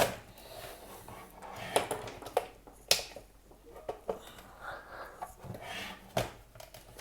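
Scattered sharp clicks and scrapes of a screwdriver prying at the pressure-fitted plastic housing of a Cisco Meraki MR46 access point, the sharpest about three seconds in and again just after six seconds.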